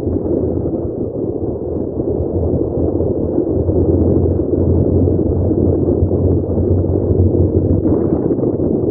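Wind buffeting the microphone on a moving motorcycle, with the bike's engine and road noise under it: a loud, steady rumble that grows heavier about two seconds in.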